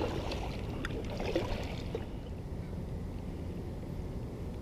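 Kayak paddle strokes, the blade dipping and dripping in calm lake water, for the first couple of seconds, then the paddling stops and only a low steady rumble is left.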